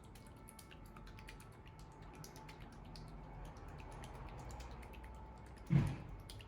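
Many small clicks and rattles of a plastic slime container being handled and closed, with one louder thump near the end.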